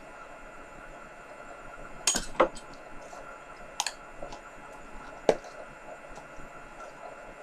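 Hands kneading and mixing slime in a plastic tub, with a few sharp clicks and knocks of the container being handled, the loudest a cluster about two seconds in and a single sharp knock a little past five seconds.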